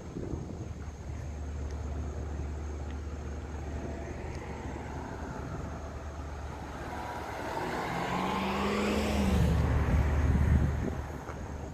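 A vehicle passes by: it builds up from about six seconds in, is loudest near the end with a falling engine tone, then fades quickly. A steady low rumble sits underneath.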